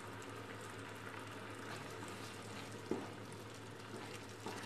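Milk with ground moong dal bubbling at a simmer in a pan, with one short knock about three seconds in and a wooden spatula stirring near the end.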